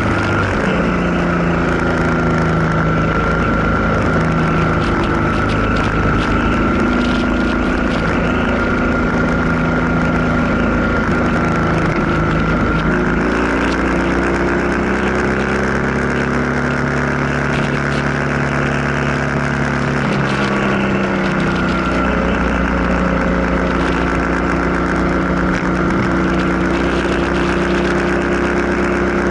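Motorcycle engine running under way, heard from on the bike, over a steady rush of wind and road noise. The engine note shifts several times around the middle, gliding up and then down as the bike changes speed.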